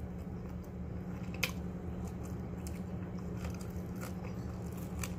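A person chewing battered fried chicken with the mouth closed, with small wet ticks and two sharp crunchy clicks, one about a second and a half in and one near the end. A steady low hum runs underneath.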